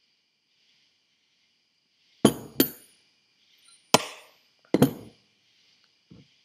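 Metal turbocharger turbine wheels on their shafts being set down on a hard surface: four sharp clunks with a short metallic ring, the first two close together about two seconds in, then two more about a second apart, and a light tap near the end.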